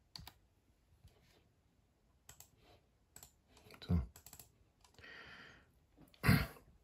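Computer keyboard and mouse clicks, sparse and irregular, as a file name is typed and saved. A louder thump comes about six seconds in.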